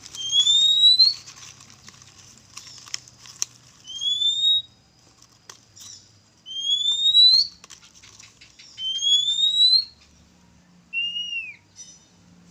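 Oriental magpie-robin (kacer) calling in shrill, screaming whistles: four loud rising notes a few seconds apart, then a short falling note near the end, with faint scattered clicks between.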